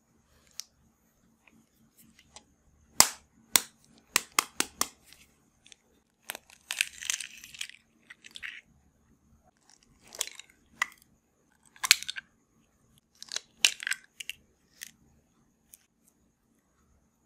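Eggs cracked one after another into a ceramic bowl: runs of sharp taps of shell, with a longer crackling while a shell is pulled apart about seven seconds in.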